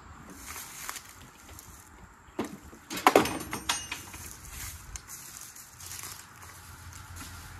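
Knocks and metal clanks with a brief ring as the mower's metal utility trailer is handled, loudest about three seconds in. Then footsteps through dry fallen leaves.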